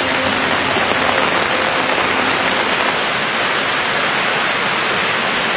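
Heavy rain pouring steadily, an even, unbroken wash of noise.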